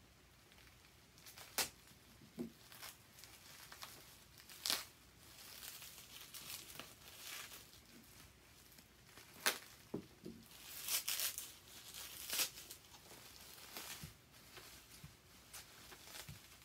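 Plastic wrapping crinkling and tearing as it is pulled open by hand: irregular sharp crackles and rustles, loudest and busiest in the second half.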